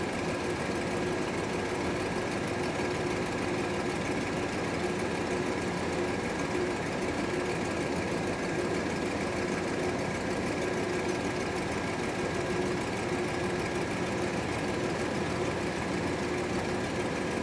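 1977 GMC Motorhome's V8 engine idling steadily with the dash air-conditioning compressor engaged, during a refrigerant recharge.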